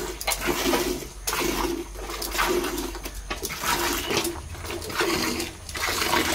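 Cow being milked by hand: jets of milk squirting into a steel bucket already part-filled with milk, in a steady rhythm of about two spurts a second as the hands alternate on the teats, each spurt a short hiss with a hollow ring from the bucket.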